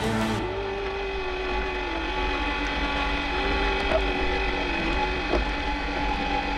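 Anchor windlass hauling in the anchor chain: a steady motor whine with ratcheting from the gears and chain, and a couple of sharp clanks about four and five seconds in.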